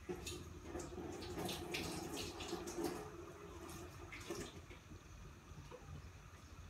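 Sauce in a wok on a gas burner simmering, with small liquid pops and bubbling, busiest in the first four seconds or so and fainter after, over a low steady hum.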